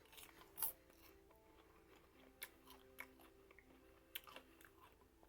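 Faint crunching of popcorn being chewed, a few scattered crunches, with faint melodic background music underneath.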